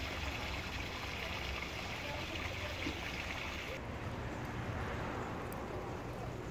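Steady rushing background noise, like running water. A higher hiss within it stops abruptly about four seconds in.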